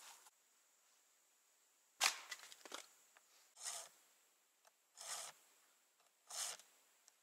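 An axe strike splitting a firewood log about two seconds in, with a short splintering as it comes apart. Then three short pulls on a chainsaw's starter cord, about a second and a half apart, without the engine catching.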